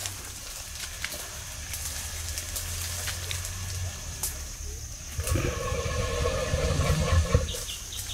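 An elephant's call: a loud pitched note lasting about two and a half seconds, starting about five seconds in, over a deep pulsing rumble. Twigs and leaves rustle before it.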